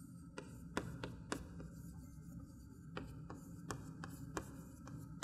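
Chalk writing on a chalkboard: irregular sharp taps and short scrapes as letters are written stroke by stroke.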